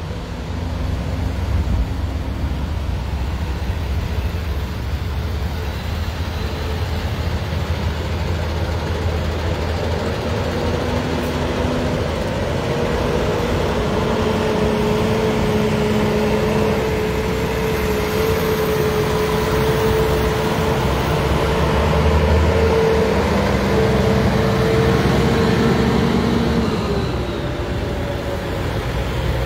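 Heavy tow trucks driving past in a slow convoy, their diesel engines rumbling. From about a third of the way in, a horn sounds one long steady tone for over fifteen seconds, then its pitch falls away as it stops, in a tow-truck horn salute.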